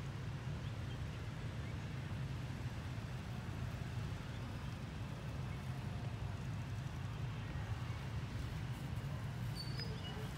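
Steady low outdoor background rumble, with a few faint short high chirps near the end.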